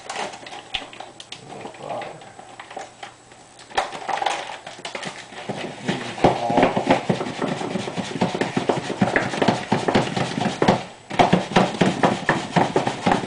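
A breadcrumb packet tipping crumbs into a bowl, then, from about six seconds in, a hand tossing raw chicken pieces in the breadcrumb coating in the bowl: a quick, uneven run of rustling and patting.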